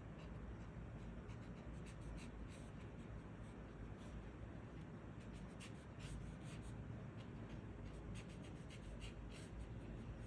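Brush pen tip stroking across paper in short, quick strokes, faint, coming in three clusters as characters are written, over a steady low background hum.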